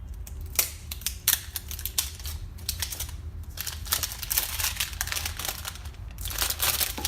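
Phone box packaging being opened by hand: dense crackling, crinkling clicks in three spells, over a low steady hum.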